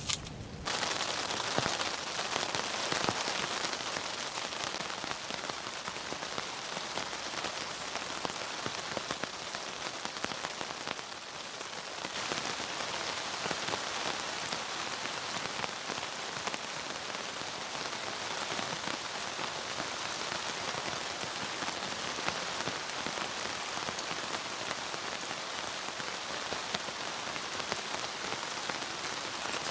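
Steady rain falling, a dense hiss of countless small drop ticks, coming in a moment after the start.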